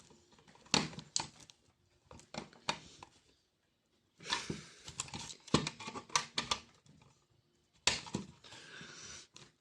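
Scattered clicks and taps with short scraping rasps: a screwdriver working at the screws of a plastic car vacuum cleaner's housing as it is handled.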